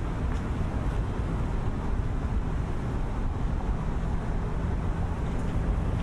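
Steady low rumble of city traffic, with wind buffeting the microphone.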